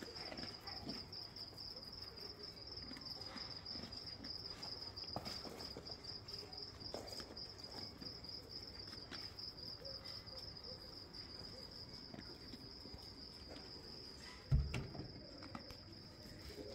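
Crickets chirring in a steady, high, pulsing trill. Near the end there is a single dull thump.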